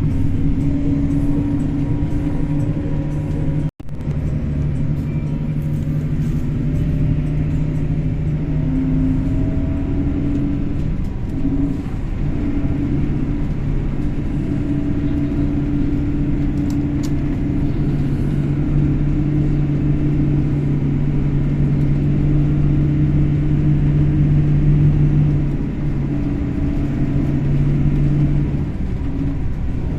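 A vehicle engine running steadily, with a low hum whose pitch rises and falls slightly as the vehicle drives. The sound breaks off for an instant about four seconds in.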